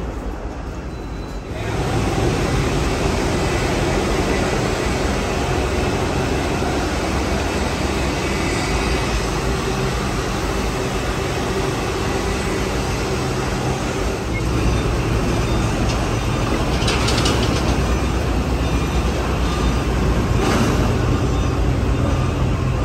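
Steady engine running and rumble of an airport apron shuttle bus, with two short hissing sounds in the second half.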